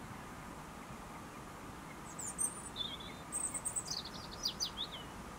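A small songbird singing a short song of high chirps and quick downward-sliding notes, starting about two seconds in, over a steady outdoor background hiss.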